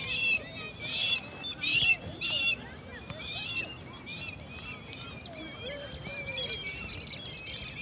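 A flock of birds chattering: many overlapping high chirps and whistles at once, with louder bursts of calling in the first two and a half seconds, then a steady busy chorus.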